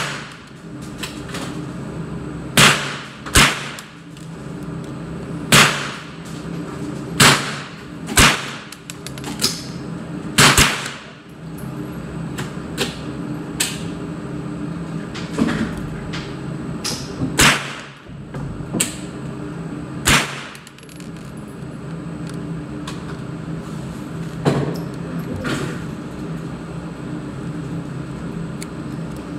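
Single gunshots, about ten, one at a time at irregular gaps of one to several seconds, each ringing briefly in an indoor range. A steady low hum runs underneath.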